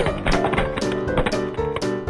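Background music: a quick, light tune of short plucked notes over a steady tapping beat.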